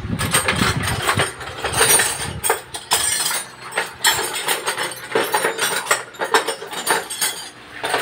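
Seat-belt retractor from a 2004 Isuzu Crosswind being worked by hand, its locking mechanism giving off a run of irregular ratcheting clicks and rattles as the webbing is pulled. This retractor's spring no longer winds the belt back in.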